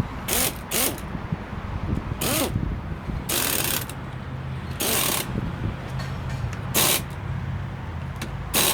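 About seven short bursts of hiss, each under half a second, spaced irregularly, over a low steady hum that sets in about three and a half seconds in.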